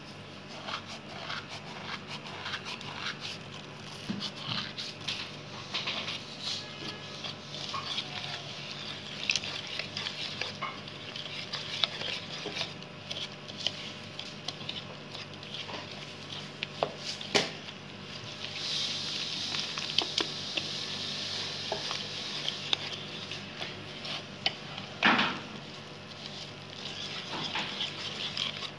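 Wire whisk stirring and scraping a dry flour-and-spice mix in a bowl, with many small clicks of the whisk against the bowl and a few sharper knocks. A faint steady low hum runs underneath.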